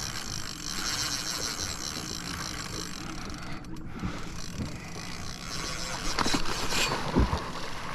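Penn Fierce 3 spinning reel's drag clicking in a rapid, even run as a hooked tarpon pulls line off, over a steady background hiss. A few sharp knocks come near the end.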